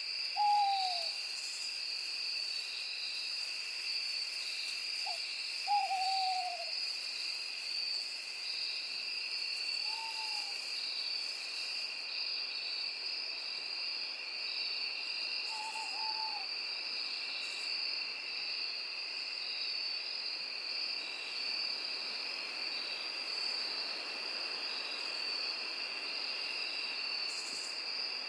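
Owl hooting a handful of times, short hoots that fall in pitch, the loudest near the start and about six seconds in, over a steady high chirring of night insects.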